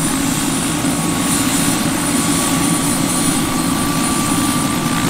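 Bell 206 JetRanger helicopter running on the ground with its rotor turning: rapid rotor chop over the steady whine of its turboshaft engine, the whine creeping slightly up in pitch.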